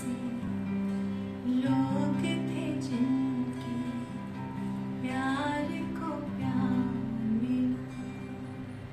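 A woman singing a slow old Hindi film song in long, wavering phrases over acoustic guitar held in sustained strummed chords.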